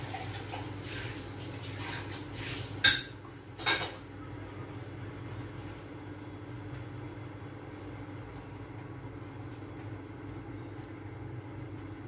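Two sharp metallic clinks of kitchenware less than a second apart, about three seconds in, over a steady low hum from the stove with the covered pot simmering.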